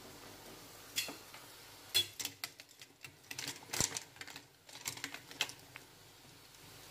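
Metal tongs clicking and clinking against a steel pot and the silver pieces in hot water: a scatter of sharp, irregular clicks, thickest in the middle few seconds.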